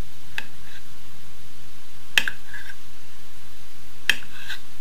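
Kitchen knife slicing through a beet and tapping down on a wooden cutting board, three or four sharp clicks about two seconds apart.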